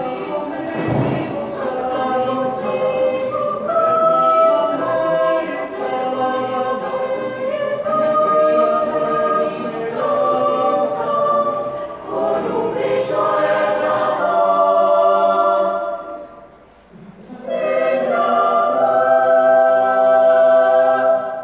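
Mixed youth choir singing unaccompanied in held chords, with a brief break for breath about three-quarters through, then a long final chord.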